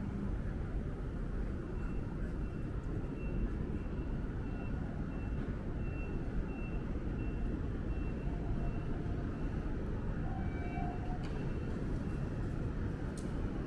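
Busy city street at night: a steady low rumble of traffic and general street noise. Through most of it, a faint high electronic beep repeats evenly about every two-thirds of a second.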